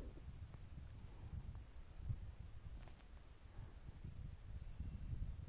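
Faint high-pitched chirping calls, typical of an insect, repeating about every one and a half seconds over a low rumble.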